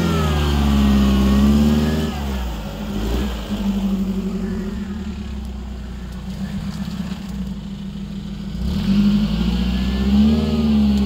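Off-road 4x4's engine revving under load in slippery mud. The revs are held high at first, drop about two seconds in, run lower through the middle and climb again near the end.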